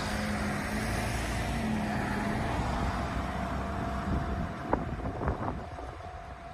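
Road traffic: cars passing on the street with steady tyre and engine noise, which eases off about five seconds in. A few short clicks come at about the same time.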